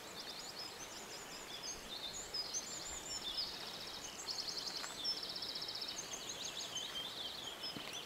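Small songbirds singing: quick high chirps and several rapid trills over quiet open-air ambience. A couple of faint scuffs of shoes on the stone blocks.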